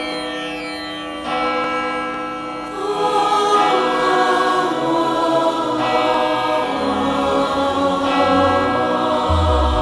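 Devotional music opening with sustained instrumental tones, joined about three seconds in by wordless choral voices, with a low bass coming in later.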